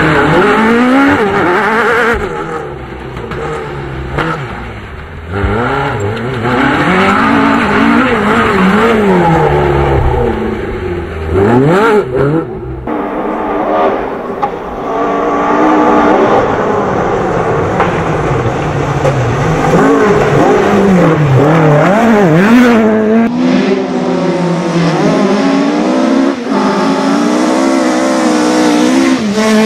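Millington Diamond four-cylinder rally engine driven hard, its pitch climbing and dropping again and again as it revs up, shifts and lifts off. It goes briefly quieter twice, a few seconds in and about twelve seconds in.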